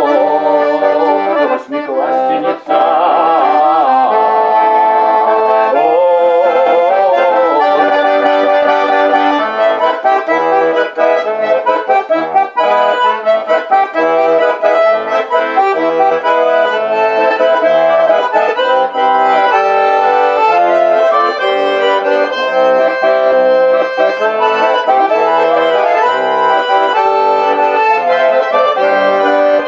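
Russian garmon (button accordion) built by master Pyatkin, played solo without singing: a running melody over rhythmic bass and chord buttons, with a brief break in the sound about two seconds in.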